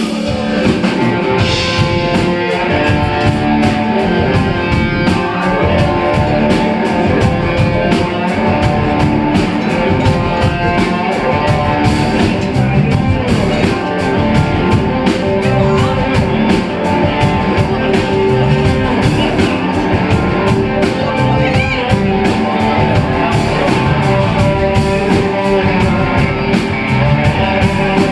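Live rock band playing an instrumental passage, with guitar over bass and a drum kit keeping a steady beat.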